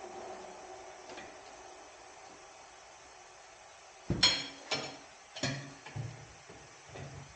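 A low hum dies away in the first second. About four seconds in comes a run of five sharp, ringing metallic clanks and knocks over roughly three seconds, the first the loudest.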